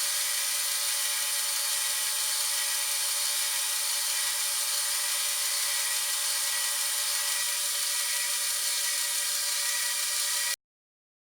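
Metalworking machine tool running with a steady high-pitched whine. It cuts off abruptly about ten and a half seconds in.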